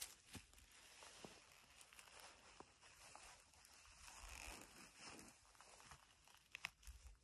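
Faint rustling and scuffing of clothing and laced hiking boots being pulled off and set down on stony ground, with scattered soft clicks and a few sharper ticks about six and a half seconds in.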